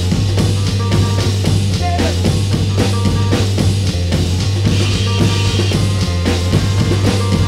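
Noisy indie rock, instrumental: a drum kit keeps a steady beat over a droning low bass note, with no singing.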